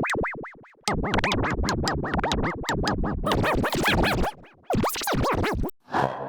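Effects-processed electronic intro jingle: a fast run of warbling pitch sweeps, each rising and falling in quick arcs, like record scratching. It cuts out briefly three times.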